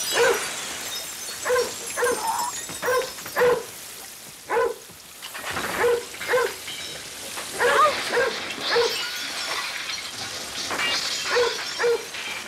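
A dog barking repeatedly in short barks, about one every half second to a second with a few gaps, over the steady hiss of a fire hose spraying water through a room.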